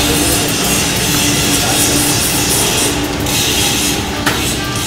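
Background rock music with drums and guitar.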